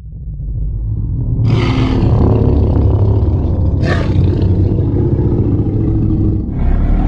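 Fan-made Godzilla roar sound effect, layered from monster and animal roars: a deep rumbling growl builds up, breaks into a full roar about a second and a half in, surges again about four seconds in, and a new roar starts near the end.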